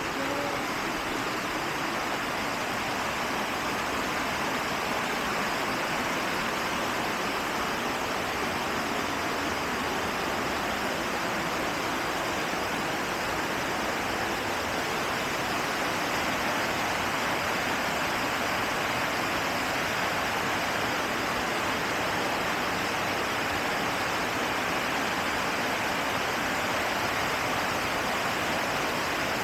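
River water flowing and rushing steadily, an even, unbroken noise.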